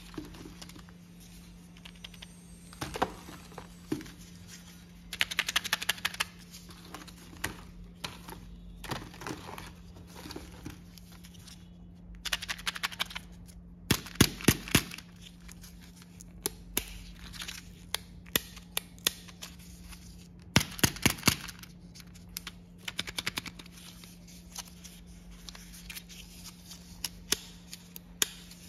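Kinder Joy eggs handled by hand: plastic egg shells clicking and tapping together and the egg's plastic wrapper crinkling and being peeled open, in irregular bursts of crackling and sharp clicks. A steady low hum runs underneath.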